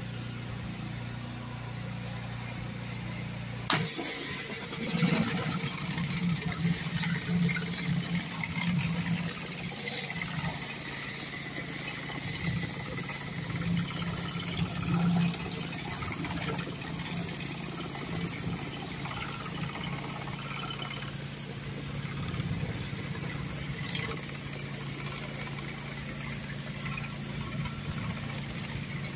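A pressure washer's engine runs steadily. About four seconds in, the surface cleaner's spray comes on suddenly: a dense hiss of water jets on concrete that swells and fades as the cleaner is pushed along the sidewalk.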